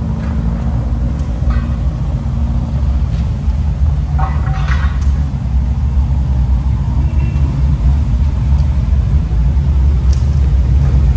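Steady low engine rumble running throughout.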